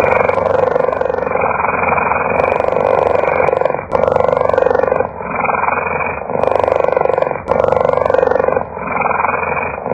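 Cheetah purring: a continuous rasping sound that changes character about every second, with each breath in and out.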